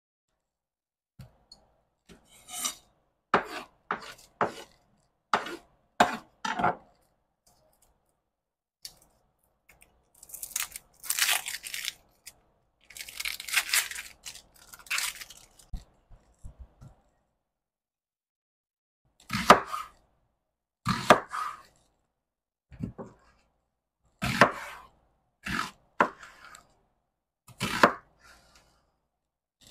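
Red onion being peeled and cut with a chef's knife on a wooden cutting board: separate knife strokes that knock on the board, with a few seconds in the middle of the dry papery onion skin being torn and pulled away.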